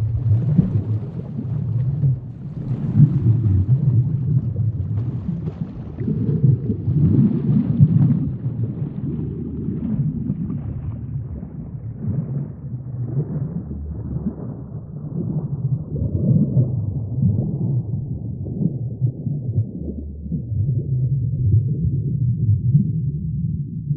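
Deep, muffled rumbling ambience that swells and eases every few seconds, with faint crackle above it. It grows duller over the second half as the higher sounds fade away.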